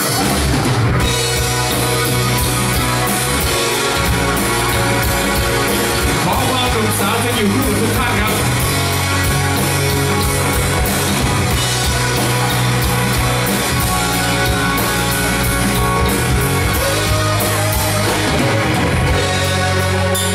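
Live pop-rock band playing a song's intro on drum kit, electric bass, electric guitar and keyboard, loud and steady.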